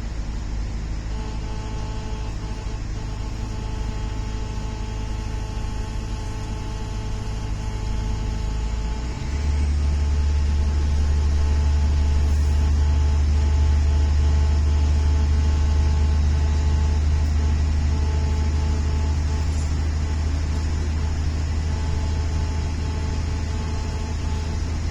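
Steady drone and hum of a passenger train in motion, heard from inside the carriage. About nine seconds in the low drone steps up in pitch and gets louder, then holds steady.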